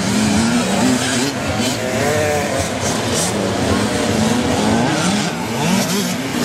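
Several kids' mini motocross bikes riding around a dirt track, their engines overlapping and revving up and down in pitch as the riders accelerate and ease off.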